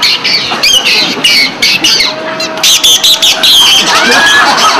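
A street clown's high, squeaky squawks, made in rapid strings of short chirps that slide up and down in pitch.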